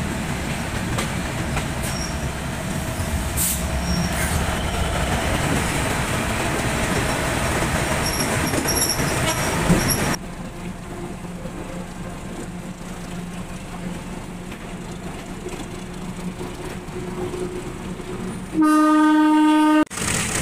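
Diesel-electric locomotive of a moving train running on the track, a dense rumble and rattle. About halfway through, the sound drops abruptly to a quieter steady engine hum. Near the end the locomotive horn gives one long blast, the loudest sound.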